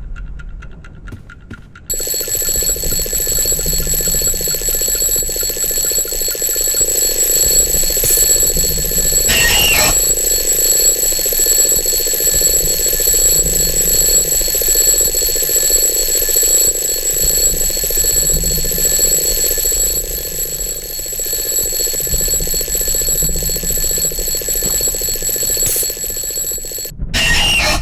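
Alarm clock going off: a loud, steady alarm that starts abruptly about two seconds in and cuts off suddenly just before the end.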